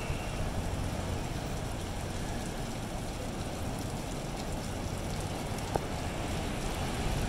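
Jet ski engine running steadily at a distance, mixed with surf washing over the rocks and wind on the microphone.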